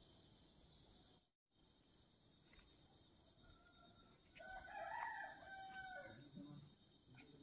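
A rooster crowing once, faint, in one long call starting about three and a half seconds in, over a steady high chirring of crickets.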